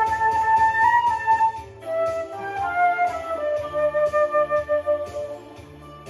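Concert flute playing a melody over an accompaniment track with a steady bass line. The flute comes in at the start with a high phrase, moves lower after about two seconds, and stops about five seconds in, leaving the accompaniment.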